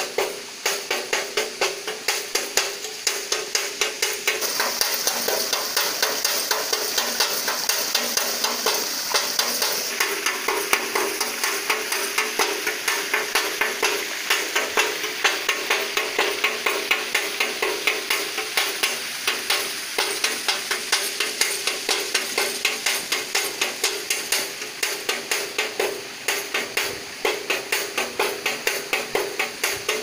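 Rat and bird repeller in a rice field, making a fast, even rattling click about three to four times a second over a steady hum.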